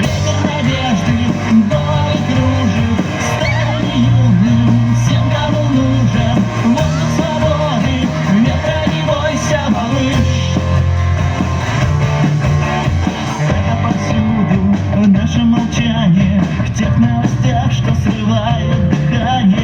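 A rock band playing live, with guitar prominent.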